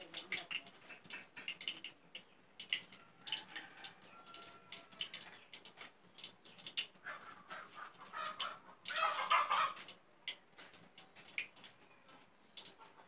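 Chickens clucking in short, irregular calls, with one louder, longer call about nine seconds in.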